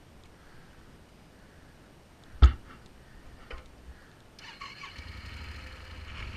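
A single sharp knock, then the Yamaha Super Ténéré's parallel-twin engine is started about four and a half seconds in and keeps running with a steady low rumble.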